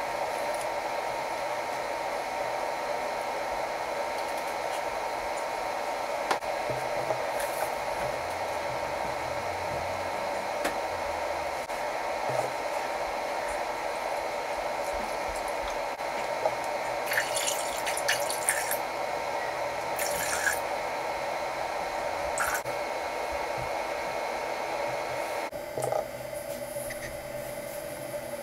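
Steady, even whooshing noise, like a running fan, with a few light clicks about 17 to 23 seconds in; it cuts off suddenly about 25 seconds in.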